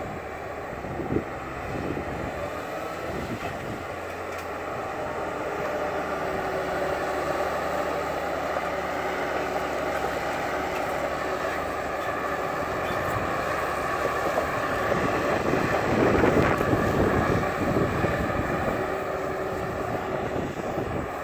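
Timberpro 840B forwarder's diesel engine running steadily, with several held tones over it, getting louder for a couple of seconds about two-thirds of the way through.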